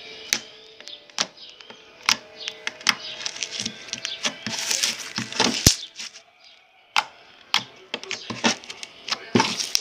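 Homemade clear-glue slime being squeezed and stretched by hand, making irregular sharp clicks and crackles, with a denser crackling stretch about halfway through.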